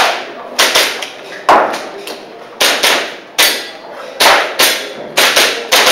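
Airsoft pistol shots fired in a practical-shooting course of fire: about a dozen sharp cracks, several of them in quick pairs, each with a short ringing tail.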